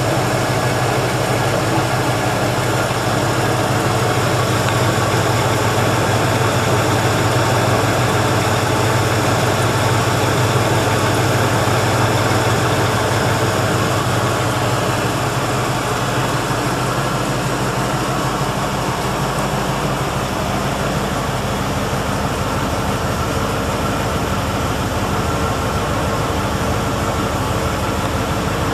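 1977 Chevrolet Corvette's 350 small-block V8 idling steadily, with an even low pulse.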